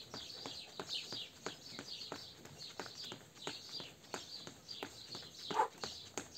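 Quick, even foot strikes of running shoes on a stone patio, about three a second, from a knee-drive running drill done on the spot. Birds chirp through it, and there is one brief louder sound about five and a half seconds in.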